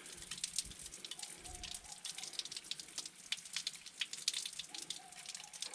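Gas-heated bush shower running, water spattering irregularly onto the floor.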